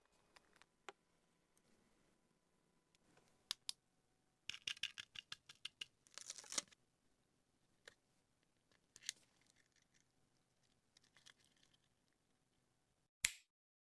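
Quiet, close crafting handling sounds: scattered small clicks and taps of tools on a clear plastic charm. A crisp crackling run a few seconds in, as tweezers peel a printed sticker off its backing sheet. A sharp click near the end, then the sound cuts off.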